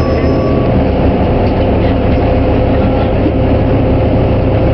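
2008 New Flyer DE41LF diesel-electric hybrid bus running steadily: the Cummins ISL diesel engine drones, with a steady higher hum over it from the Allison hybrid drive.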